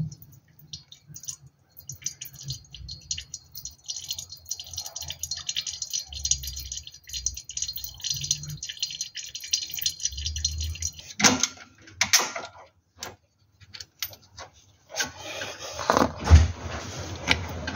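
Hands working a clutch slave cylinder and its rubber dust boot free under a car: scattered light metallic clicks and rattles, a couple of louder clacks about eleven seconds in, and a sharp knock near the end.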